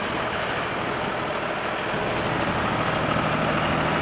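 Farm tractor engine running steadily as it pulls a hayride wagon past, growing a little louder in the second half.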